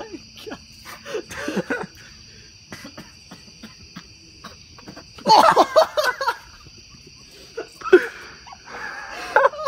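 A person coughing and gagging in harsh vocal bursts, loudest about five seconds in and again near the end, over steady chirping of crickets.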